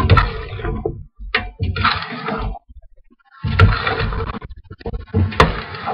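Sharp knocks and clattering, with rough scraping or rustling noise between them and a short lull in the middle.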